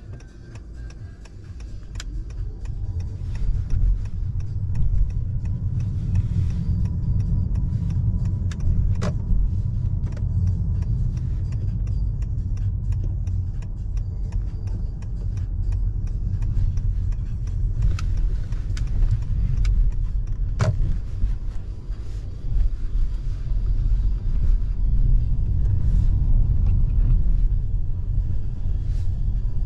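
Low rumble of a Honda Accord driving, heard inside the cabin, growing louder over the first few seconds and then holding steady. A few sharp clicks come through now and then.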